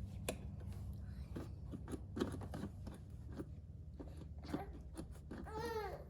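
Irregular small clicks and scrapes of hands handling wiring and small parts, over a steady low hum.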